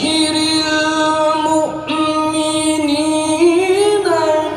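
A man's voice reciting the Quran in the melodic tilawah style into a microphone. He holds long, ornamented notes, breaks off briefly about two seconds in, then rises and wavers in pitch near the end.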